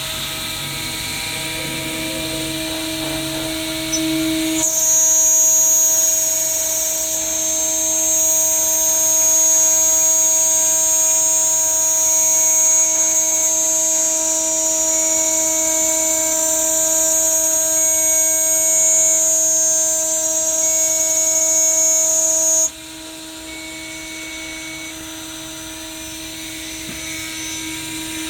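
CNC router running with a steady whine at several pitches. About five seconds in, a louder high-pitched hiss joins, and it stops abruptly some five seconds before the end.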